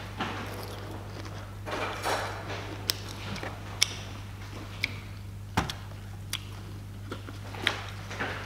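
Rustling and handling of a cardboard takeaway box, with a string of short light clicks and taps spread through, over a steady low hum.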